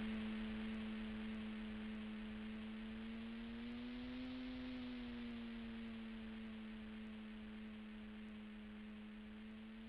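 Radio-controlled model plane's motor and propeller, a steady hum in flight that rises a little in pitch about four seconds in, then settles back, while slowly fading as the plane moves away.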